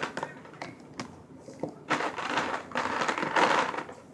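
Small plastic toy figures being handled and sorted: a few sharp clicks, then about two seconds of rustling and clattering as the figures are shuffled around.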